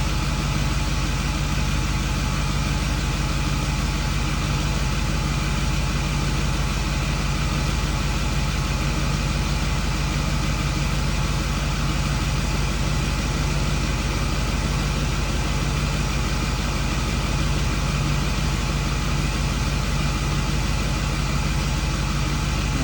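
Ford 6.4 Powerstroke V8 turbo diesel idling steadily. The engine is being run for a turbo-seal smoke test, and the exhaust smoke shows the owner that the turbo seals are bad and burning oil.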